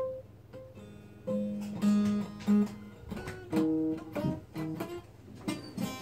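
Acoustic guitar being picked: a run of separate notes and chords played one after another, the first struck sharply right at the start.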